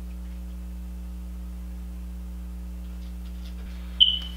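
Steady low electrical hum in the recording, made of several fixed pitches. About four seconds in comes one short, high-pitched ping that fades away within a fraction of a second.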